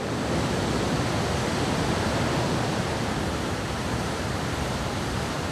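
Ocean surf: a steady rushing wash of breaking waves that swells a little and then eases.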